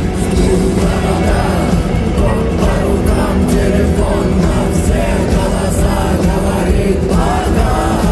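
Live rock band playing loudly at an arena concert, recorded from the audience, with singing coming in about a second and a half in.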